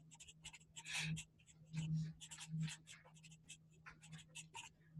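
Sharpie marker writing on paper: a quick run of short, separate strokes as letters are written, a few of them louder than the rest.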